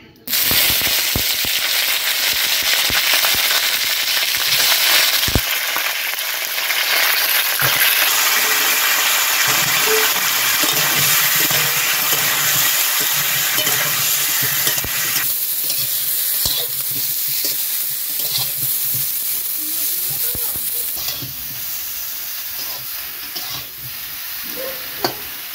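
Cauliflower florets frying in hot mustard oil in an aluminium kadai: a loud, steady sizzle with a metal spatula scraping and clicking against the pan as they are stirred. The sizzle starts abruptly and grows quieter in the second half as the florets brown.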